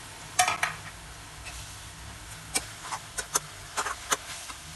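Sharp clinks of a metal ladle knocking and scraping against a steel wok as frying mustard greens are stirred, a pair of clinks about half a second in and a scattered run of them in the second half, over a faint steady sizzle of the greens in oil.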